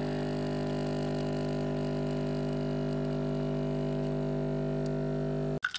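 Espresso machine's pump humming steadily while it pours a shot into a glass, cutting off suddenly near the end as the brew finishes.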